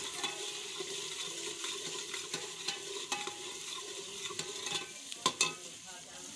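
Ladle stirring and scraping in a steel pot of vegetable curry frying over a wood fire, with a steady sizzle and frequent small clinks against the pot. The two sharpest clinks come about five seconds in.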